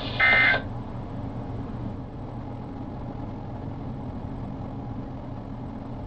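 A short burst of NOAA Weather Radio SAME digital data tones, the end-of-message code that closes the broadcast warning, about a quarter of a second in. It is followed by a steady low hum and hiss from the receivers.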